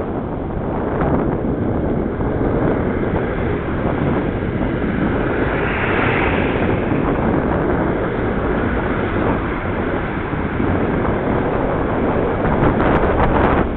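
Wind buffeting the microphone of a bike-mounted camera on a fast ride downhill, with steady tyre and road noise. A vehicle passes about six seconds in, and a few sharp clicks come near the end.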